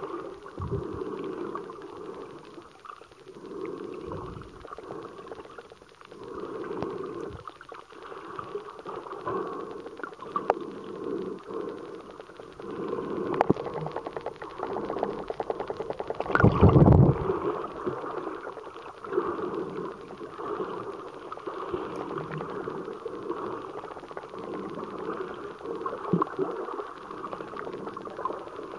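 Underwater sound picked up by a submerged camera: water swishing and gurgling in uneven swells. A fast run of ticks around fourteen seconds in builds into a louder rush at about sixteen to seventeen seconds.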